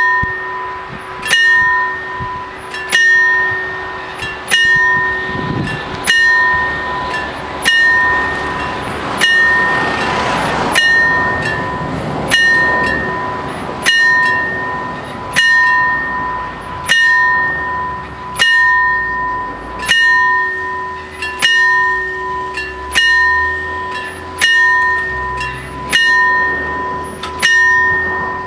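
Italian level-crossing warning bells ringing, one strike about every one and a half seconds, each strike ringing on until the next. They signal the crossing closing, with the barriers coming down.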